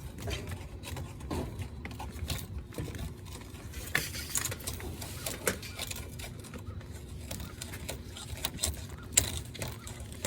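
A hand tool scraping and clicking against a cut copper air-conditioner line-set pipe as the burr inside its bore is reamed out: irregular light metallic clicks and scrapes, with a sharper click about nine seconds in, over a steady low rumble.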